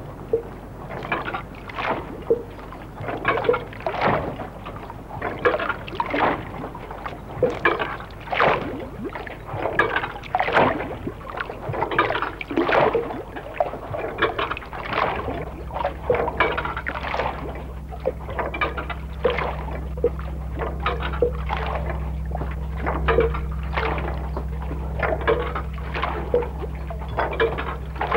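Water lapping and sloshing against a quay in irregular splashes, one or two a second. About halfway through a low steady hum joins in underneath.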